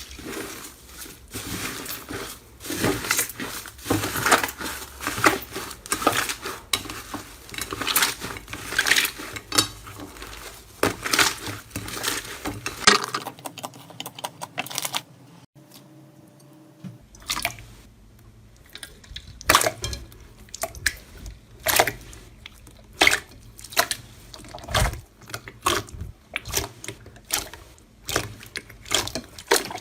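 Slime being squeezed and poked by hand, giving a dense run of wet clicks and pops. The clicking drops away about halfway through for a few seconds, then picks up again.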